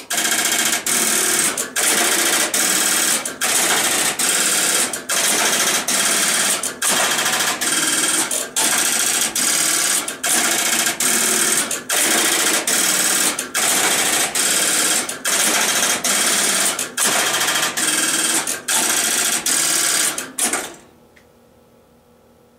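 Western Electric step-by-step (Strowger) line finder switches stepping: a loud, rapid metallic clatter of the stepping mechanisms, broken by short pauses about once a second. It stops abruptly about twenty seconds in, leaving only a faint steady hum.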